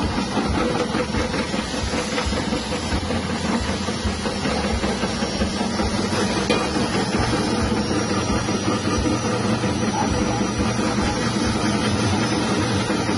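Electric chip-slicing machine running steadily, its 180-watt motor humming as it spins the blade and cuts potatoes into thin slices.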